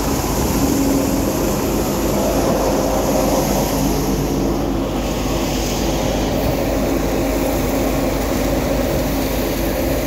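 Samrat tractor-driven thresher running steadily, the tractor engine and threshing drum making a continuous, even machine noise.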